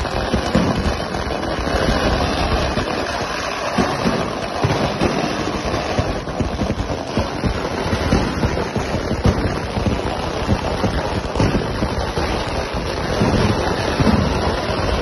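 Fireworks going off in a continuous barrage: many small bangs and crackles running together into a steady loud din.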